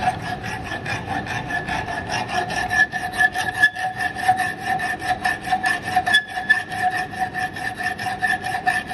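A bastard file rasping back and forth across the edge of a 5 mm steel plate clamped in a bench vise, in rapid, even strokes, several a second, with a steady ringing tone under them. This is rough filing to take rust off the plate's edge.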